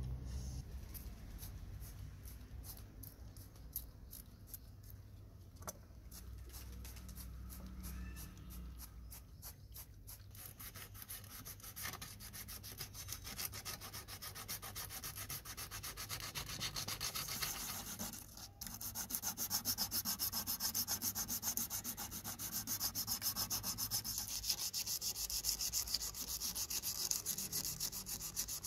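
Fast back-and-forth rubbing on a bare diecast model car body: first a toothbrush scrubbing off stripped paint, then sandpaper on the metal. After a brief break about two-thirds of the way through, the strokes come back louder.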